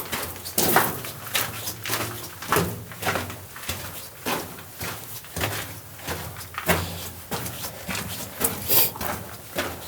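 Footsteps crunching on loose rock and gravel in a mine tunnel: an uneven series of sharp crunches and scuffs, one or two strong steps a second.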